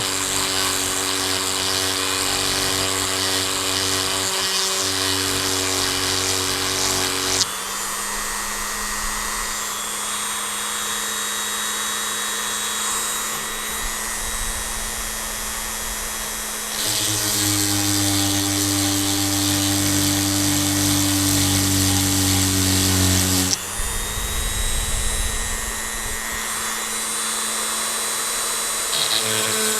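Dremel 3000 rotary tool running at medium speed with a chainsaw-sharpening grinding stone, grinding the cutters of a chainsaw chain. A steady motor whine under a hissy grinding sound, whose pitch and grind shift abruptly a few times.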